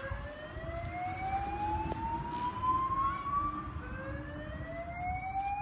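Fire alarm sounding a slow whoop tone: a single tone that rises steadily in pitch for nearly four seconds, drops back low, and starts rising again about four seconds in.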